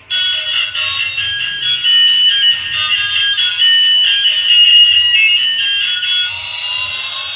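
Toy airliner's electronic sound chip playing a quick tune of short, high beeping notes. About six seconds in it changes to a wailing, siren-like tone that sweeps in pitch.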